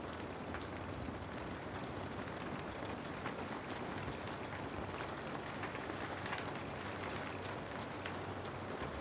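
Steady rain falling, a dense even hiss with many small scattered drop ticks.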